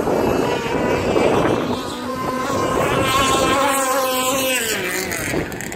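Radio-controlled racing boats running flat out, a high buzzing motor note that holds steady and then drops in pitch near the end as a boat passes, with wind rumbling on the microphone.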